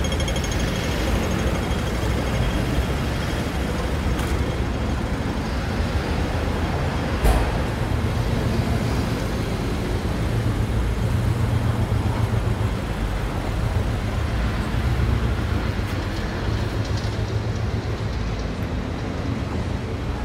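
City street traffic: vehicle engines running and passing, with a steady low rumble. Near the start a pedestrian crossing signal ticks rapidly, and about seven seconds in there is one sharp knock.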